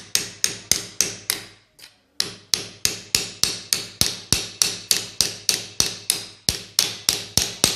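Hammer blows on the end of a stainless-steel pipe, driving two pipes together over an inner joining bolt. The strikes come in a steady run of about three to four a second, each with a short metallic ring, with one brief pause about two seconds in.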